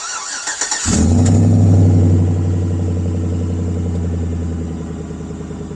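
Chevy Tahoe's V8 starting on a cold morning. The starter cranks for under a second, then the engine catches, revs up briefly and settles toward a steady fast idle.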